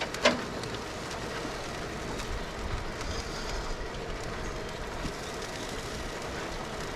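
Steady hiss of rain falling on surfaces, with one sharp click just after the start as a meat-probe plug is pulled from the smoker's controller.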